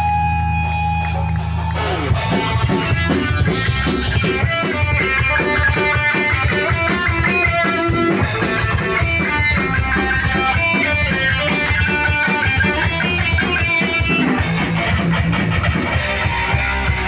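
A live rock band playing loud: electric guitar, bass guitar and drum kit through stage amps. It opens on a held, ringing chord, and the full band comes in about two seconds in.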